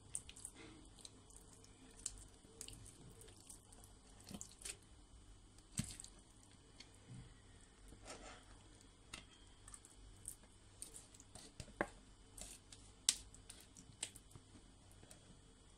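Faint wet scraping of thick clotted cream being scooped into a plastic food-processor bowl, with scattered clicks and a few sharper taps of utensil and hand against the bowl.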